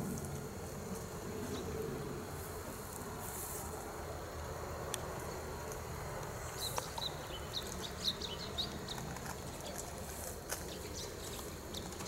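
Outdoor ambience with a steady low rumble; about halfway through, a run of quick, high chirps starts up, a few a second, and comes back near the end.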